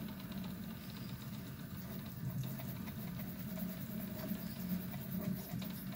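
Prusa i3 MK3 3D printer with a Skelestruder extruder and E3D Volcano hotend, printing fast. Its stepper motors buzz with a constantly shifting pitch as the print head traces the first layers.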